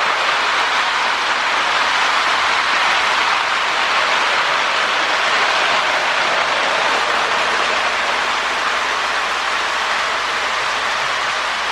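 Lionel postwar 2056 Hudson O-gauge toy steam locomotive running on the track: a steady, even whirr of its electric motor and gearing with the wheels rolling on the rails.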